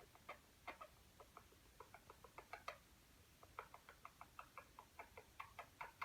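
A sleeping conure snoring: faint, quick little clicks and squeaks, several a second and uneven in spacing.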